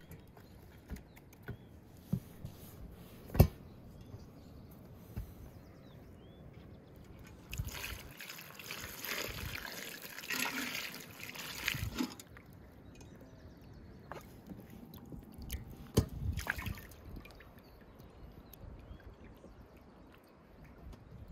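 Water poured from an aluminium pot over vegetables in an enamel bowl, splashing and trickling for about four seconds in the middle. Before and after it, a few sharp knocks, the loudest about three seconds in.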